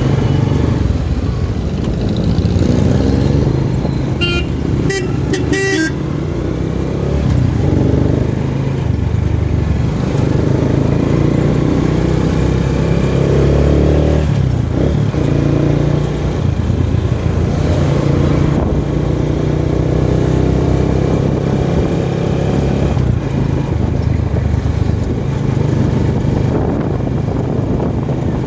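A motor vehicle running on the road, a steady low engine drone that shifts pitch with speed, with a quick run of short horn toots about four to six seconds in.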